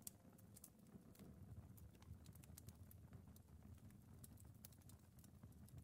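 Near silence: a faint low rumble with soft, scattered clicks.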